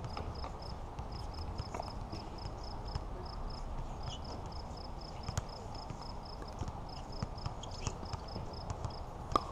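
Pickleball paddles striking the plastic ball in a rally: sharp pops every second or two, the loudest near the end. A faint high chirp pulses about four times a second in the background.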